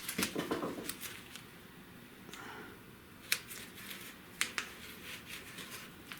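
Quiet handling noise in a workshop: a few sharp light clicks and taps, a cluster in the first second and a couple more around three and four and a half seconds in, with no cutting tool running.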